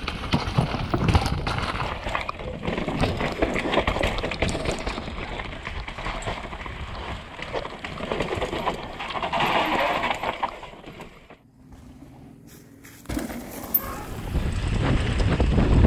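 Mountain bike ridden fast down rocky dirt trails and wooden features: knobby tyres rumbling over dirt and rock with the bike rattling and clattering in quick knocks. The noise drops away for about two seconds past the middle, then the clatter comes back.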